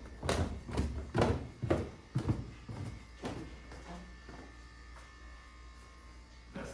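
Regular knocks, about two a second, for the first three seconds or so, over a steady low buzzing hum that carries on once they stop.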